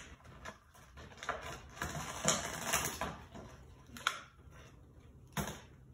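Plastic toy packaging being handled and pulled open: scattered rustles and light clicks, with sharper clicks about four seconds and five and a half seconds in.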